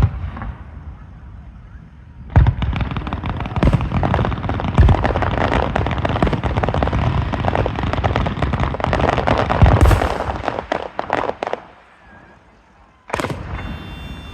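Aerial fireworks going off. A sharp bang comes first. Then about nine seconds of dense, rapid-fire popping thins out and stops, and after a brief lull a second loud bang comes near the end.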